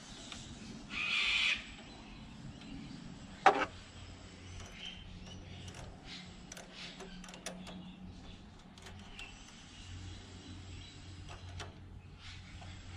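Small spanners clicking and tapping on the throttle linkage of a Porsche flat-six individual throttle body kit as a linkage lock nut is tightened: a brief hiss about a second in, one sharp knock about three and a half seconds in, then scattered light clicks.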